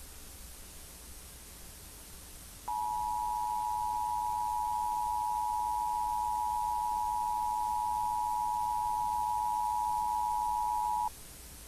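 Emergency Alert System attention signal: two steady tones (853 and 960 Hz) sounding together. It starts about three seconds in, lasts about eight seconds and cuts off sharply, over a steady hiss.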